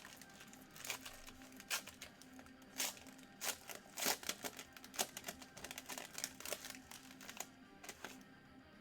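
Trading cards and plastic being handled, with irregular crinkling and sharp clicks that thin out near the end.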